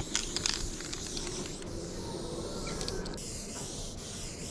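A steady hiss, with a few soft clicks near the start.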